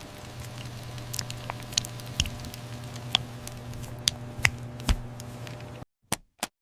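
Soft, scattered taps and squishy clicks of mochi dough being pressed and shaped into a pocket, over a faint steady hum. The sound cuts out abruptly near the end, with a couple more clicks after.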